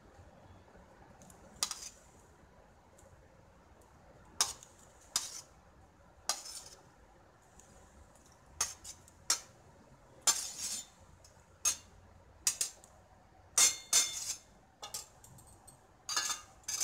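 Metal spoon clinking and scraping against a stainless steel plate as paneer cubes are pushed off it into a pan: scattered sharp clinks, coming thicker in the second half.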